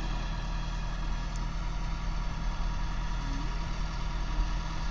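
Heavy diesel engine idling steadily with a low, even hum.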